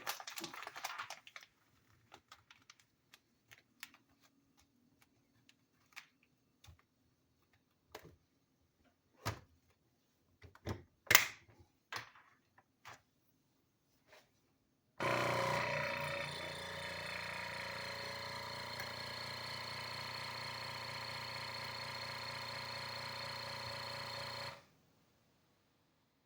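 Light clicks and knocks of handling, then the Geryon vacuum sealer's pump motor starts about halfway through, drones steadily for about nine seconds and stops abruptly. The machine runs but leaves the bag sealed and not vacuumed, which the owner takes for a vacuuming fault.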